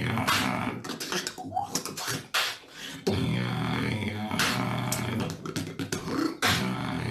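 Beatboxing: a sustained buzzing vocal bass drone under sharp mouth-made snare clicks and snaps. The drone drops out briefly about two seconds in, then resumes.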